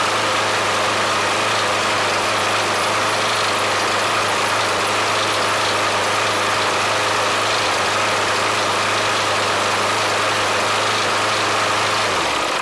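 Briggs & Stratton 6¾ hp single-cylinder lawn mower engine running steadily at high speed, set around 3300 rpm, then shut off near the end, the sound dying away.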